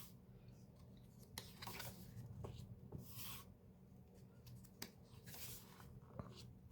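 Faint rustling swishes and a few soft clicks of a photo book's pages being handled and turned.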